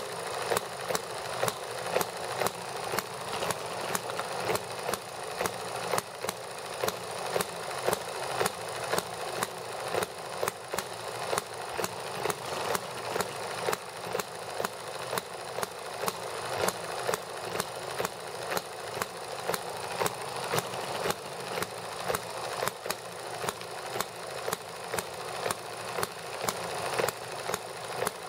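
Small model gasoline engines running: a steady train of sharp firing pops, about two to three a second, with mechanical clatter. The horizontal engine runs throughout, and the vertical engine runs alongside it for part of the time.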